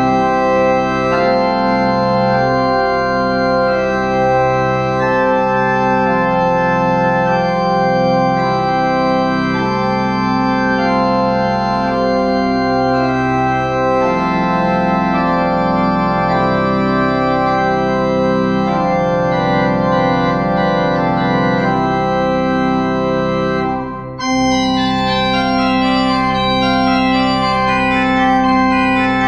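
Organ playing sustained chords as the closing postlude after the blessing. About 24 seconds in it breaks off briefly and goes on with quicker, higher notes.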